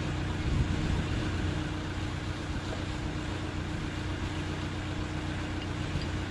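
Chinook helicopter's twin turboshaft engines and tandem rotors running, a steady mechanical hum with a constant tone under a noisy rush.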